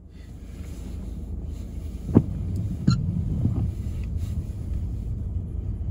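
Low road and engine rumble heard inside a moving car's cabin, fading in at the start, with two short knocks about two and three seconds in.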